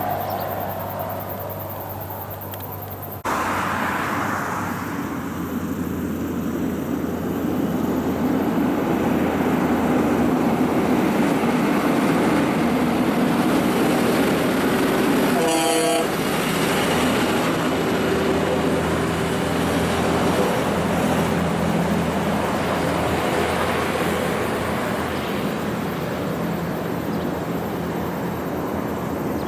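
Heavy diesel trucks running under load as they pass on a hill climb. A single short horn toot from one of the trucks comes about halfway through.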